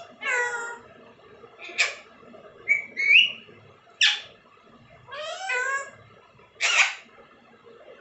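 Alexandrine parakeets calling: six short vocalisations about a second apart, brief shrill cries alternating with longer wavering calls that rise and fall in pitch.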